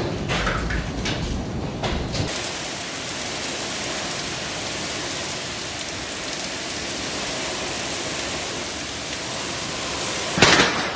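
Hailstorm with heavy rain: hailstones hit with sharp clicks at first, then give way to a steady, dense hiss of downpour, and loud rapid hail impacts return near the end.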